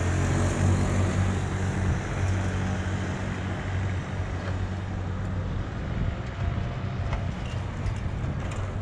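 A vehicle engine running with a steady low hum, which weakens after about five seconds, over city street noise.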